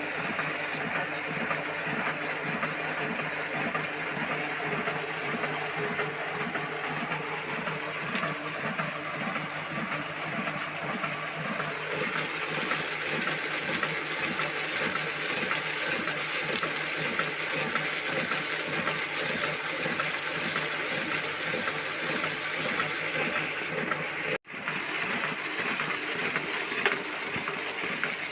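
Paper printing machine running with a steady, regular mechanical beat, briefly cut off about three-quarters of the way through.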